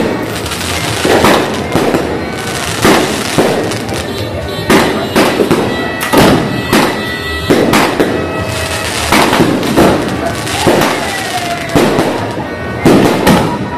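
Aerial fireworks bursting overhead: a rapid string of sharp bangs, roughly one or two a second, over continuous crackle and hiss.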